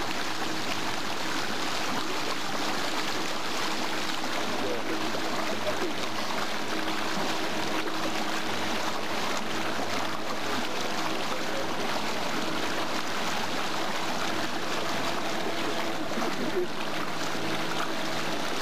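Boat motor running steadily under way, with water rushing past the hull.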